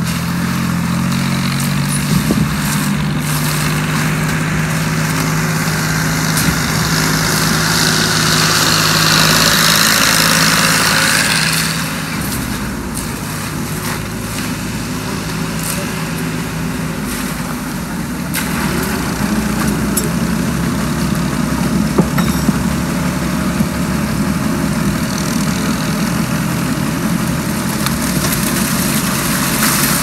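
Concrete transit mixer truck's diesel engine running steadily to turn the drum while it discharges wet concrete down its chute, with a louder rushing noise between about six and twelve seconds in.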